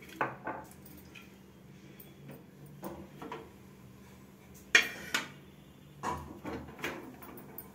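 Steel ladle clinking and knocking against the inside of an aluminium pressure cooker as ghee is ladled in. Light clinks at the start, two sharp knocks about five seconds in, the loudest, and a few more clinks after them.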